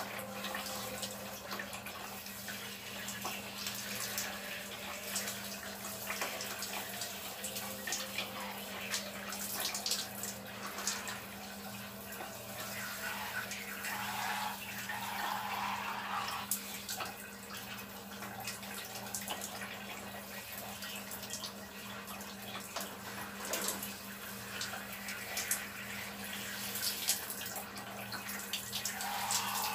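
Handheld shower head spraying water that splashes and drips on a person and the floor, a steady hiss with scattered splashy ticks over a steady low hum.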